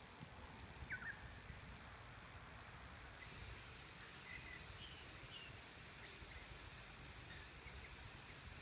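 Faint birdsong outdoors: a short clear chirp about a second in, then scattered faint chirps, over a low steady rumble.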